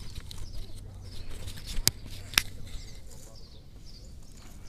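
Two sharp clicks about half a second apart, over faint bird chirps outdoors.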